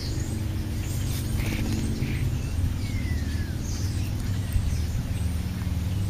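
European starlings giving scattered short chirps and one thin falling whistle over a steady low rumble.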